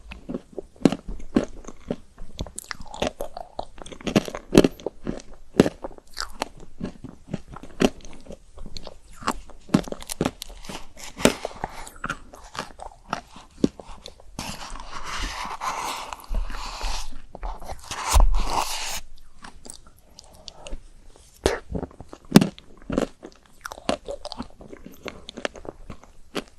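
Close-miked biting and chewing of chocolate-coated ice cream: irregular crunches and crackles of the chocolate shell with wet mouth sounds. There is a longer, denser stretch of noise a little past the middle.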